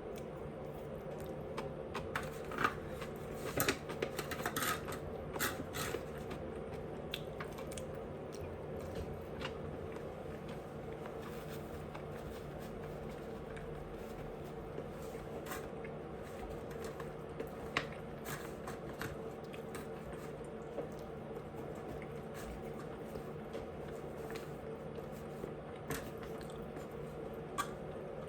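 A person eating: short wet chewing and mouth clicks, thickest in the first few seconds and scattered after that, over a steady background hum.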